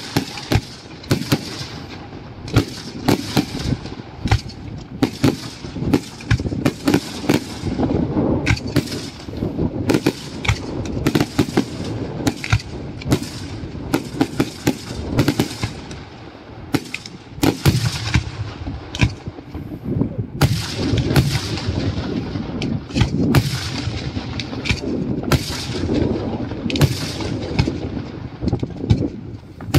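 Daytime aerial fireworks: a dense, continuous barrage of sharp bangs from shells bursting overhead, several a second, with echoes between them.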